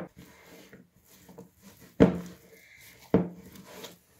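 Sticky panettone dough being slapped and worked by hand on a floured surface: two dull thuds about a second apart, with soft rubbing and handling noise between them.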